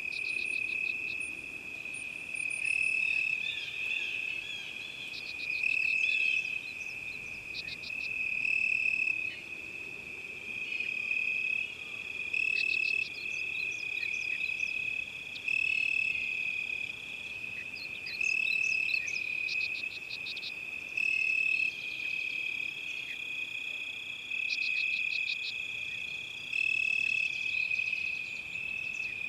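A continuous high-pitched trilling chorus of calling animals, swelling and easing every couple of seconds, with scattered short bird chirps and whistles over it.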